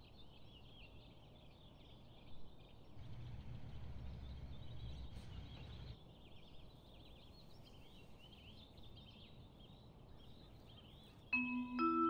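Small birds chirping busily over faint outdoor background noise, with a low rumble from about three to six seconds in. Music with held notes begins near the end.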